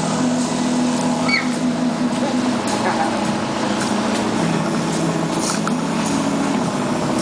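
Riverboat's engine running steadily, a low drone over rushing water.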